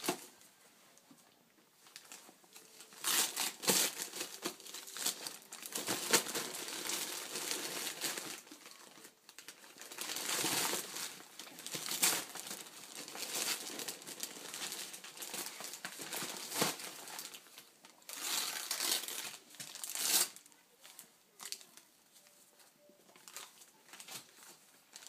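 Christmas wrapping paper crinkling in irregular bursts as a baby grabs and pulls at a wrapped present, with quiet stretches near the start and near the end.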